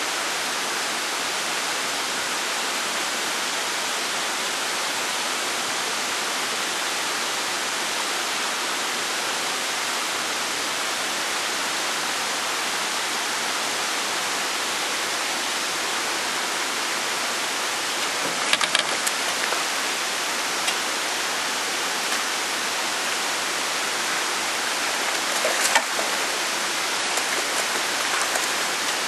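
Steady, even rushing noise, like running water or a strong hiss. A few short, sharp clicks and knocks come in after the halfway mark.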